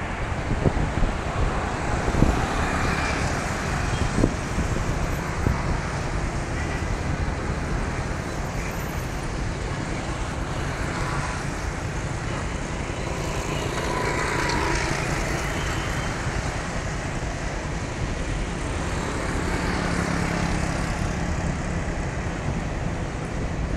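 Road traffic: motor scooters and cars passing on a wide city street, a steady traffic hum. A few low thumps of wind on the microphone in the first few seconds.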